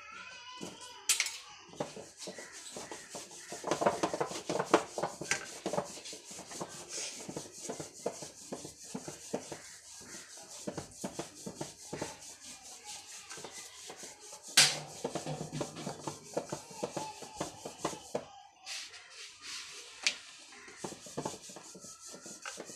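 Hands patting and pressing a ball of rice-flour dough flat on a steel plate: a fast, steady run of soft pats and rubbing, with a couple of sharper knocks, the loudest a little past the middle.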